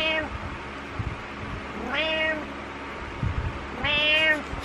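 Domestic cat meowing three times, about two seconds apart, each meow rising then falling in pitch. Soft low bumps come between the meows.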